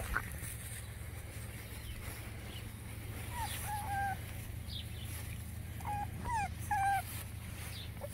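Boston terrier puppies whining and yipping: a few short high whines about three seconds in, then another cluster around six to seven seconds, some falling in pitch, over a low steady rumble.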